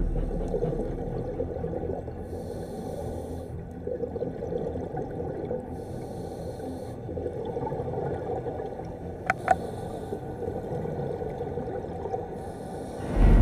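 Underwater sound of a scuba diver breathing through a regulator: a hiss or bubble burst about every three and a half seconds over a low, steady water rumble, with two sharp clicks a little past the middle.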